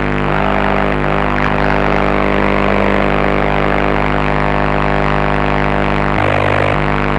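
Buzzing electronic drone from a K176LA7 CMOS NAND-gate chip (a CD4011 equivalent) run as a tone generator and played by hand, processed with software effects. It is a dense stack of steady tones under a rough, grainy texture, and the low hum changes briefly about six seconds in.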